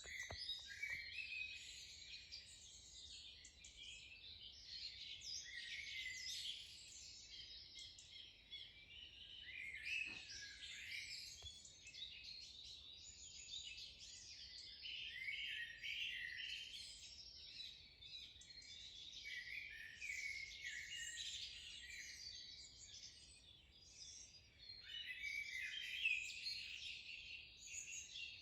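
Dawn chorus: many small birds singing and chirping at once, a dense tangle of overlapping high trills and tweets.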